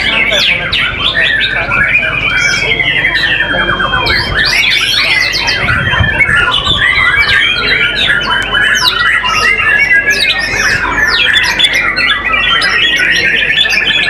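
White-rumped shamas singing nonstop, several at once: a dense, loud tangle of whistles, quick notes and long rattling trills.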